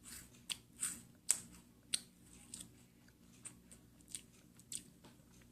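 Crisp crunching of a cream-filled wafer being bitten and chewed: irregular sharp cracks, louder in the first two seconds and softer chewing crunches after.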